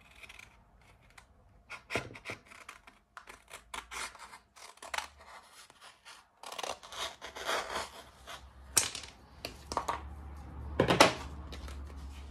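Scissors cutting a sheet of self-adhesive vinyl sign-writing film, the film crinkling and rustling as it is handled. There are a series of sharp snips, with a longer rustle midway and the loudest snip near the end.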